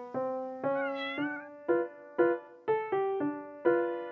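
Background piano music, a new note about every half second, with a kitten's short wavering meow about a second in.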